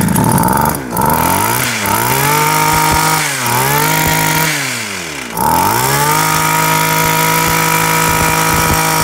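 Komatsu Zenoah CHT230 hedge trimmer's small two-stroke engine running after a test start. It is revved up and let drop back twice, then held at high revs.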